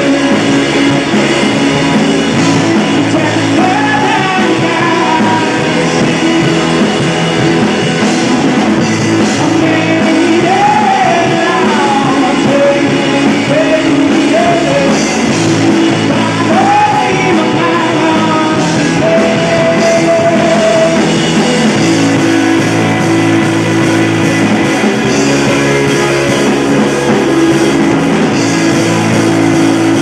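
Rock band playing live, with a lead vocal singing the melody over the full band.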